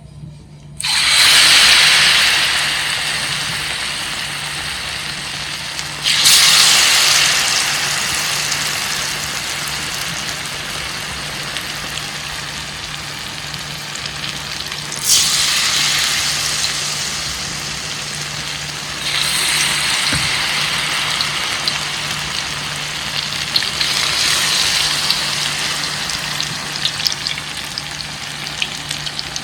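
Banana fritters frying in hot oil, sizzling loudly. The sizzle flares up suddenly about a second in, and again three more times, each flare slowly dying down.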